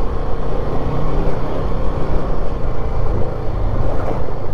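Royal Enfield Himalayan 450's single-cylinder engine running steadily while riding, mixed with the rumble of its tyres on a gravel track.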